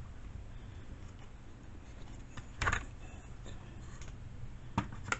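A few light clicks and knocks of chainsaw parts being handled, over a low steady hum.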